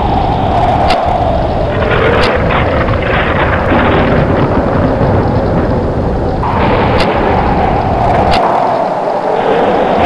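Storm wind gusting hard over a steady rush of noise, with a whistling howl that slides down in pitch over a few seconds, twice. A few sharp cracks stand out.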